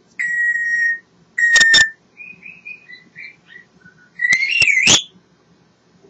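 African grey parrot whistling. Two level whistles come in the first two seconds, then a string of short chirps, then about four seconds in a warbling whistle that swoops up and down, broken by sharp clicks.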